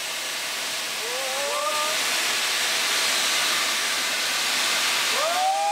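Steam locomotive hissing steam, steady and slowly growing louder. Two brief rising whistle-like tones sound over it, about a second in and again near the end.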